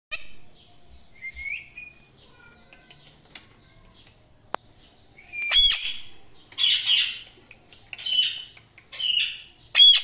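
Indian ringneck parakeets calling: a few soft chirps at first, then from about halfway a run of loud, harsh squawks about once a second, two of them sharp, piercing shrieks.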